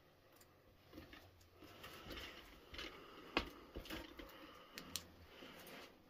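Faint scuffing with scattered short clicks; one sharp click a little past halfway is the loudest thing, and a smaller one comes about five seconds in.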